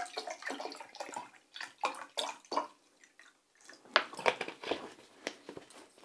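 Water poured from a plastic bottle splashing and dripping irregularly into a glass measuring jug, with a few sharper clicks and knocks about four seconds in as the plastic bottle is handled and set down.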